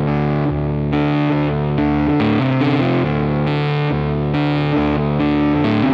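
Background rock music with distorted electric guitar playing a chord riff that changes every half second or so.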